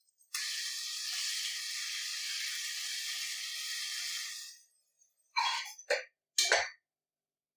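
Ground masala paste hitting hot oil in a pressure cooker, sizzling steadily for about four seconds before dying away. Then three short scrapes of a spoon stirring the paste against the metal pot.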